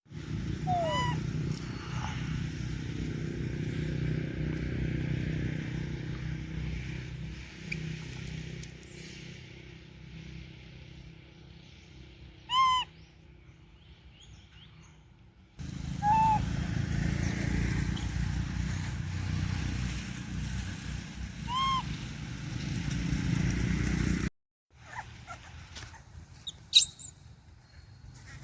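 A monkey's short, high coo calls, each rising and falling, a few seconds apart, over a low rumble that cuts off abruptly twice; a sharp high squeal near the end.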